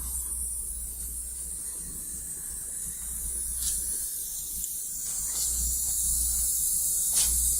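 Steady high hiss over a low rumble, with a few faint clicks; the rumble grows louder about two-thirds of the way through.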